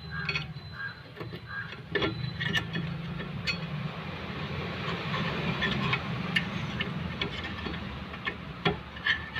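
Light clicks and taps of brake parts and tools being handled over a steady low hum.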